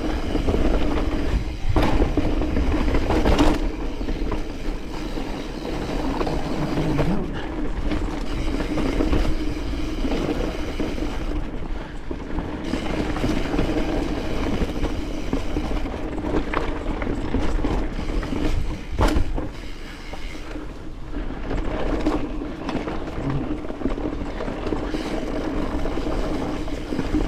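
Mountain bike running down a rocky trail: a continuous rumble and rattle of tyres, chain and frame over rock, with a few sharp knocks from harder hits, one near the start, one a second or so later and one about two-thirds of the way through.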